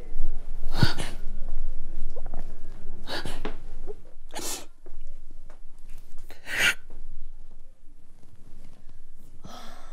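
A woman crying hard: several sharp, gasping sobs a second or two apart, with quieter sobbing between them.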